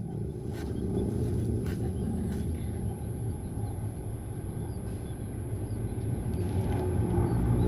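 Outdoor ambience: a steady low rumble with a thin, steady high-pitched whine above it and a few faint clicks.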